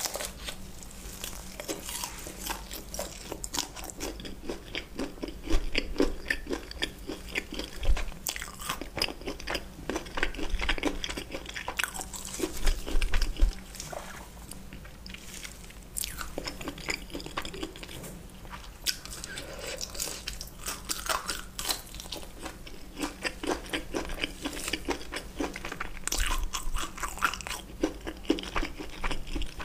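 Crunching and chewing of battered deep-fried shrimp, many crisp irregular bites and crackles picked up close to the mouth, louder in places.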